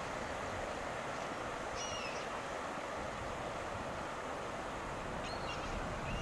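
Steady rush of fast-flowing river water, with a few short, high bird calls about two seconds in and again near the end.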